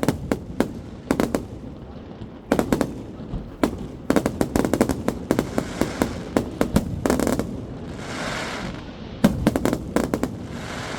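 Fireworks display: rapid volleys of sharp bangs and crackling pops in clusters with short lulls, and a stretch of hissing crackle about eight seconds in.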